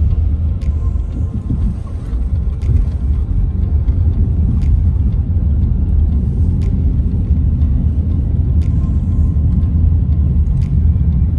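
Car cabin noise while driving: a steady low rumble of engine and tyres, with a faint tick about every two seconds.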